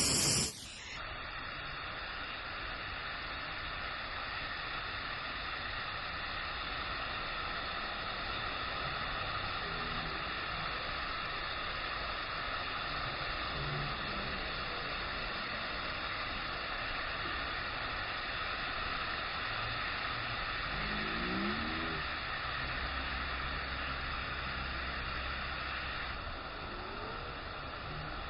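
Steady rushing of water from a waterfall and its stream, an even noise that holds at one level throughout.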